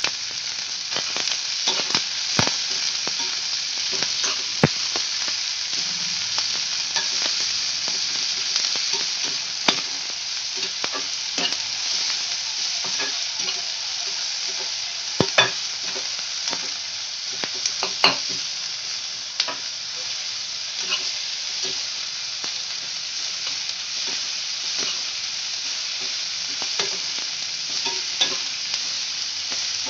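Sliced onions, garlic, ginger and curry leaves sizzling steadily in a little oil in a kadhai, stirred with a flat metal spatula. The spatula scrapes and clicks against the pan now and then, loudest about halfway through.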